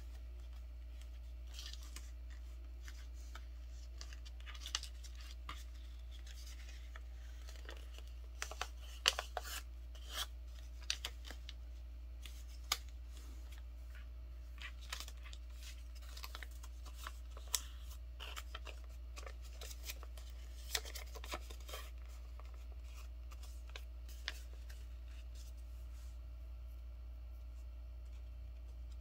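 A sheet of paper being folded into a paper airplane by hand: irregular rustles, crinkles and rubbing strokes as the folds are pressed and creased, over a steady low hum.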